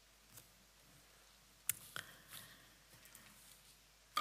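Quiet room with a few faint, short clicks, two of them close together about two seconds in.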